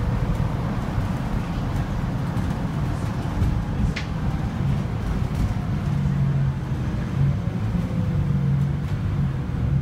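Scania Citywide LFA articulated city bus heard from inside the cabin while driving: a steady low engine and road rumble. A low hum comes and goes in the second half, and a single sharp click sounds about four seconds in.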